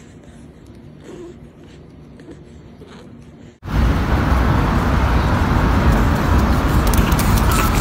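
Quiet room noise with a few faint soft rustles. About three and a half seconds in, a sudden loud, steady rushing noise with a deep rumble cuts in and holds level.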